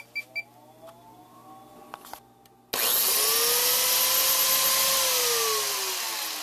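A few short high electronic beeps at the very start. About two and a half seconds in, a Freud biscuit joiner's universal motor switches on with a sudden whine that rises and settles, runs free with no load for about two seconds, then winds down with a falling whine.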